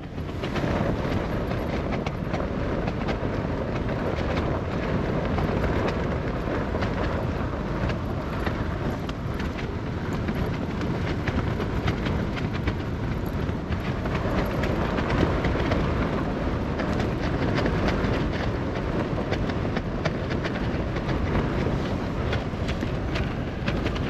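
Strong wind buffeting a tent, heard from inside: a continuous roar with rapid flapping and rattling of the tent fabric, swelling a little with the gusts.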